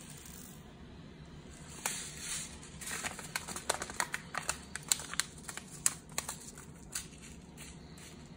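Seed packet crinkling in the hands, with a run of small sharp clicks and crackles as broccoli sprout seeds are shaken out onto a plastic mesh sprouting tray; it starts about two seconds in and thins out near the end.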